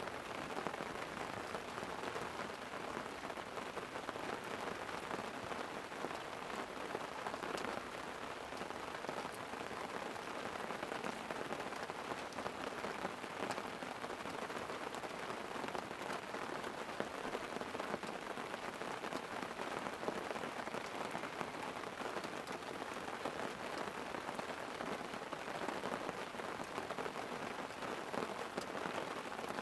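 Light rain falling on a tent: a steady hiss dotted with many small drop ticks.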